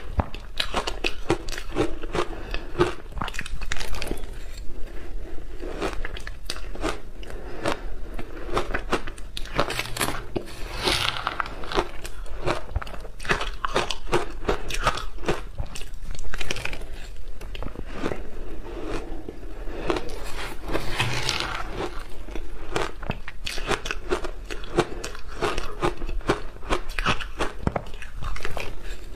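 Crunchy shaved ice dusted with milk powder being bitten and chewed in big mouthfuls: a dense, unbroken run of rapid crunches as the ice breaks between the teeth, louder for a moment twice along the way.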